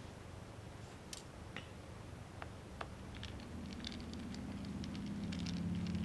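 Scattered small clicks and ticks of a T4 Torx driver and tiny screws being worked out of a MacBook Pro's case. A low steady hum grows louder from about halfway through.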